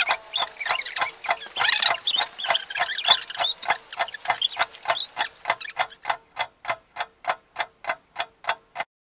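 Ticking-clock sound effect: sharp, evenly spaced ticks, about three a second, over a faint steady tone. It cuts off suddenly near the end.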